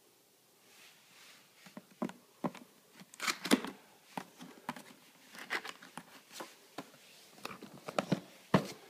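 A cardboard box being handled: irregular scuffs, taps and rustles of hands and card, starting after about a second and loudest about three and a half seconds in.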